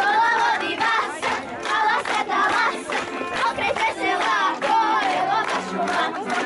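A group of young girls singing a Serbian folk song together while dancing a kolo, with their steps on the paving heard as short beats under the singing.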